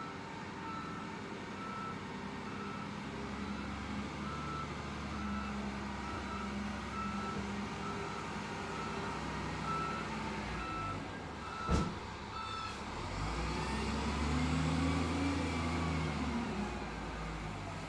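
SDLG wheel loader's diesel engine running while its reversing alarm sounds a steady, even string of beeps. The beeping stops about two-thirds of the way in, just after a sharp knock, and the engine then revs up for a few seconds.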